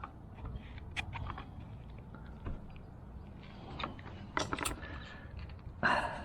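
Plastic and metal parts of a fuel pump assembly handled and pushed into place: scattered light clicks and rattles, a quick cluster of them past the middle, and a louder scrape near the end.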